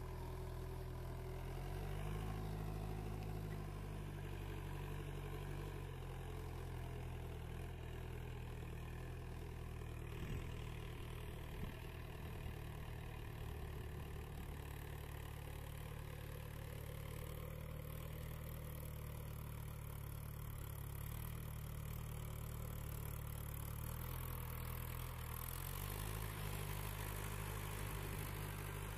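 Diesel tractor engine running steadily under load while puddling a flooded paddy field on iron cage wheels; a low, even hum whose pitch lifts slightly a couple of seconds in and again near the end.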